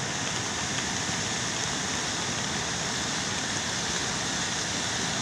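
Steady rushing noise of a muddy, flood-swollen river torrent, running at an even level throughout.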